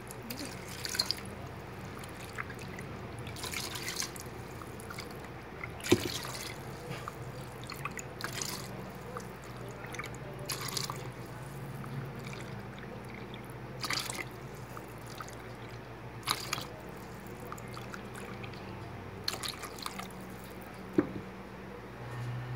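Water being measured out and poured cup by cup: a plastic jug fills a small measuring cup, which is tipped into a cooker's inner pot of beef and tomato. Short splashing pours come every two to three seconds, with dripping between them.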